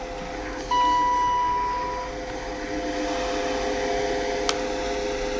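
High-speed passenger lift: a steady electronic beep sounds for about a second and a half, then the lift runs with a steady hum that grows a little louder as the car travels. A single sharp click comes near the end.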